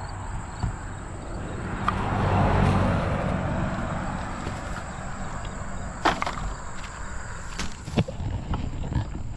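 A vehicle passing on the road, its noise swelling and fading about two to three seconds in, followed by a few sharp clicks and knocks of litter being handled.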